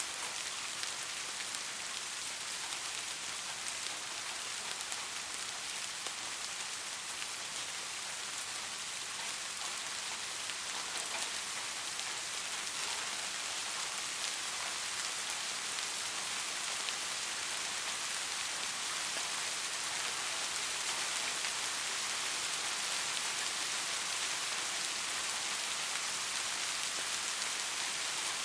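Steady rain falling on a surface, an even hiss with scattered individual drop ticks, growing slightly louder in the second half.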